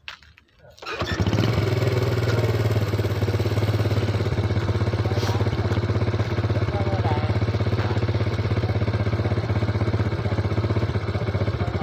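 A motor engine comes in suddenly about a second in and runs steadily at an even pitch with a fast, regular beat.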